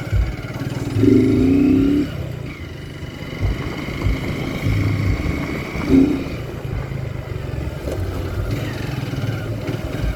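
Motorcycle engine running on the move, with a louder pitched sound about a second in.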